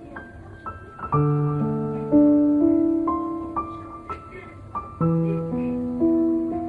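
Background music: a slow piano piece, notes and chords struck about once a second and left to ring and fade.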